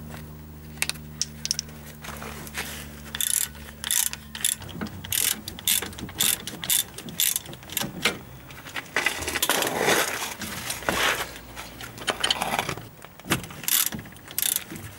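Ratchet wrench clicking in irregular runs as the two brake caliper bolts are unscrewed, with sharp metal clicks throughout. A steady low hum runs through the first few seconds and stops.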